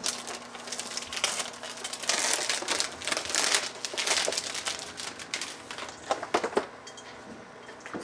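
Plastic shrink-wrap crinkling and crackling as it is peeled by hand off a cardboard box, thinning out near the end.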